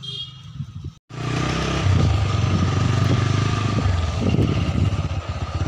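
A small motorbike or scooter engine runs steadily and loudly from about a second in, after a brief dropout, heard as if from on the moving two-wheeler.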